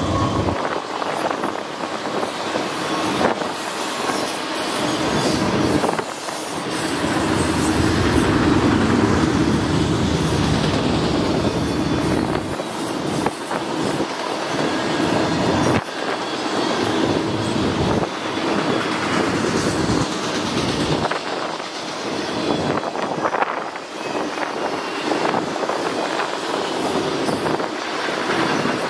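Freight train of autorack cars rolling past: a steady rumble and rattle of steel wheels on the rail, with repeated clacks as the wheels pass over rail joints.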